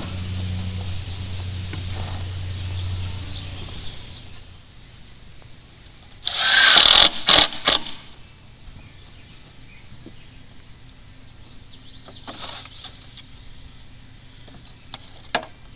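Cordless drill driving a screw into a wood fence board: one loud run of about a second and a half followed by two short bursts, with a shorter run later. A low steady hum sits under the first few seconds.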